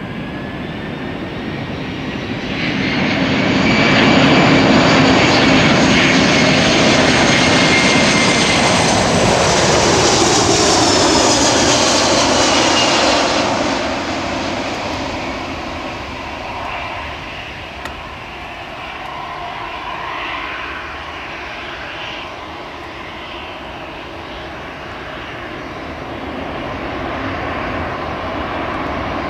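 Airbus A340-300 airliner's four CFM56 turbofans on landing approach: a high whine with a rumble beneath that grows loud as the jet passes close by, its pitch falling as it goes past, then dropping away to a lower, quieter engine sound that swells a little again near the end.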